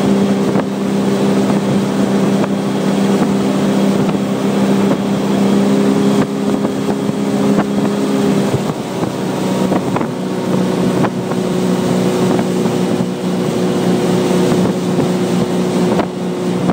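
Tow boat's engine running steadily at towing speed over the rush of its wake; the engine note dips slightly about halfway through.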